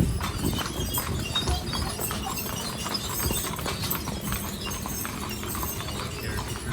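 Horses pulling a stagecoach, their hooves clip-clopping in a steady run of strikes over a low rumble.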